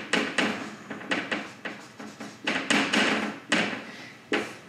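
Marker writing on a whiteboard: a quick, irregular run of about a dozen scratching strokes and taps as letters are drawn.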